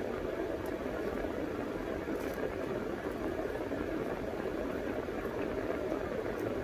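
Steady, even rushing hum inside a car's cabin with the engine running.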